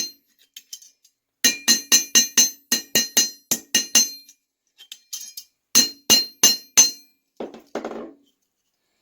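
Small rivet hammer tapping copper rivets with its flat face to peen them flush. A quick run of about a dozen light, ringing metal taps, a pause with a few faint clinks, then five more taps and a duller knock near the end.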